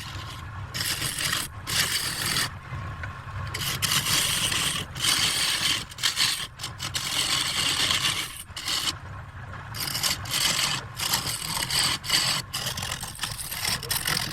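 Wood lathe running with a steady low hum while a turning tool cuts the spinning wood in repeated scraping passes. The cutting noise breaks off briefly between passes.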